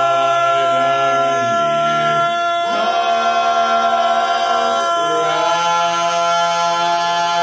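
Vocal quartet singing a cappella, holding sustained chords that move to a new chord about every one to two seconds, with an upward slide into one chord a little before the middle.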